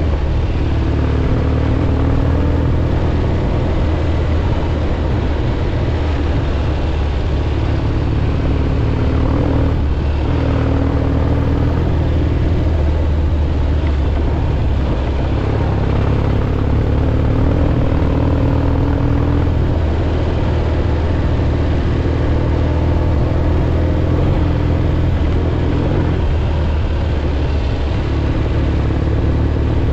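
1967 Triumph Bonneville T120's 650 cc parallel-twin engine running under way, its note rising and falling and dropping back several times as the throttle and gears change, over a heavy low rumble of wind and road noise.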